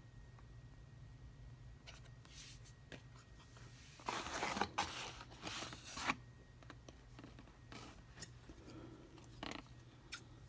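Toy packaging being handled: cardboard and plastic rustling and scraping loudly for about two seconds in the middle, with scattered clicks. Near the end, scissors snip at the rubber bands holding the figure to its tray.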